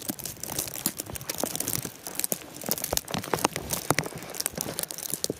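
Footsteps in deep fresh snow, with irregular crunching and crackling and soft low thumps as the feet press down.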